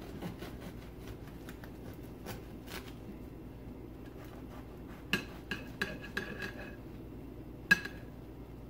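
A knife sawing through a loaf of whole wheat bread in quick, soft scratchy strokes. Then the blade clicks against the plate several times with a short ring, the loudest click coming near the end.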